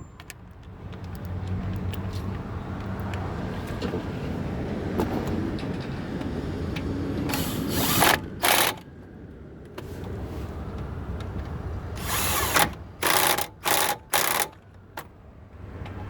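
Impact gun running in a lower control arm bolt. It spins steadily for several seconds, then hammers in short bursts as the bolt tightens, with a pair of bursts about halfway through and a quick series of bursts near the end.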